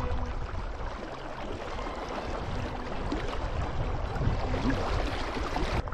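Flowing river water, a steady even rushing.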